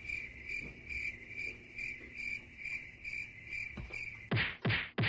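A cricket chirping in an even rhythm, about three chirps a second at one high pitch. A little past four seconds in it cuts off, and a quick run of steeply falling sweeps begins.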